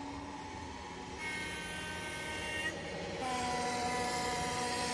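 Horn of a sound-fitted model diesel locomotive: a high note held for about a second and a half, then a lower note held for about two and a half seconds.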